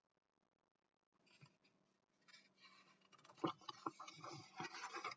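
Pages of a hardcover picture book rustling as it is handled and a page is turned. The rustling starts faintly about a second in and grows louder in the second half, with a few soft knocks.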